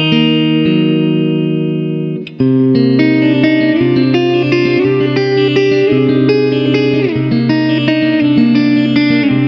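Instrumental background music led by guitar, with sustained notes. It fades and briefly drops out about two seconds in, then comes back in fully.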